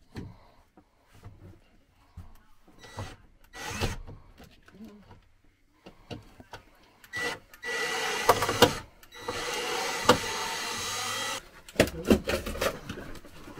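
A handheld power tool runs in two bursts of a couple of seconds each, about halfway through, working on wood paneling. Scattered knocks and rattles of handled wood and parts come before and after.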